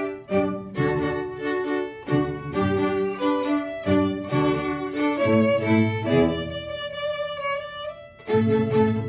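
A small string ensemble of violins, cello and double bass playing, in short accented chords at first, then longer held notes, with a brief soft moment followed by a loud entry near the end.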